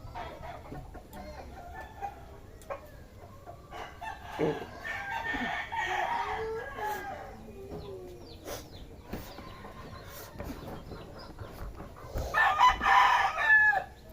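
Rooster crowing twice, the second crow the loudest, near the end, with scattered short clicks in between.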